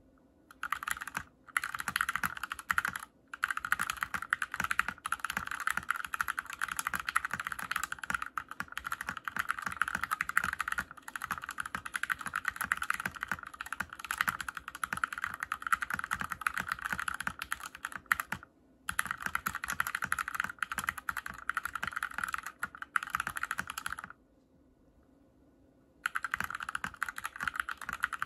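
Typing on a mechanical keyboard fitted with hand-lubed Gateron Cream linear switches: a dense, steady run of keystrokes, broken by a few brief pauses and one stop of about two seconds about three quarters of the way through.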